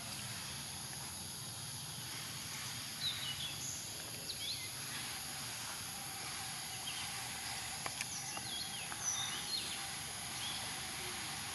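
Outdoor ambience: a steady high insect drone with several steady pitches, with scattered short, high chirps a few seconds in and again later, and a couple of faint clicks.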